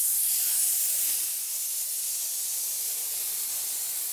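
Compressed-air paint spray gun spraying paint, a steady high hiss.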